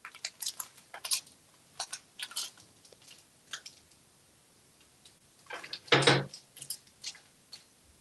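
Crinkling and rustling of a small bag of peanuts being handled and offered to a parrot: scattered short crinkles and clicks, with a louder burst of rustling about six seconds in.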